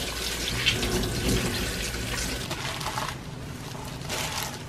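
Tap water running steadily onto spring cabbage leaves being rinsed by hand in a sink, stopping about three seconds in. After it, softer rustling of leaves being tossed with seasoning by a plastic-gloved hand.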